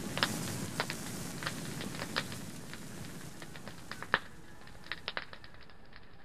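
Log campfire crackling: irregular sharp pops and snaps over a low steady rush of burning, with the loudest pop about four seconds in.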